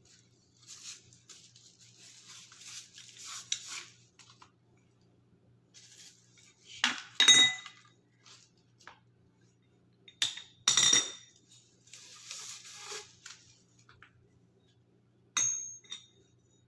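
Metal tube sections of a floor-standing phone holder stand clinking and knocking against each other as they are handled, with short ringing clinks in pairs about 7 and 10 seconds in and once more near the end, and soft rustling and scraping between.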